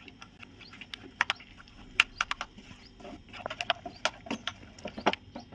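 Wooden spoon stirring a thick, cooking batter in an aluminium pan: irregular small clicks and scrapes of the spoon against the pan and the wet mixture as it thickens on a low flame.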